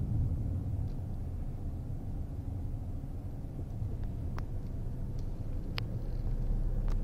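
Steady low rumble of a car driving, heard from inside the cabin, with a few faint ticks.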